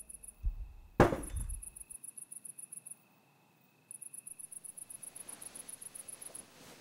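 Cicadas chirping in an even pulsing rhythm of about seven pulses a second, pausing briefly now and then. About a second in, a single sudden loud crash with a deep thud cuts across it.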